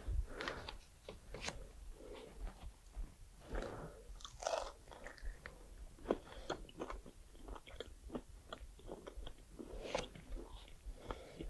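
A man chewing and biting pieces of grilled shashlik, close to the microphone: irregular wet smacks and small crunchy clicks.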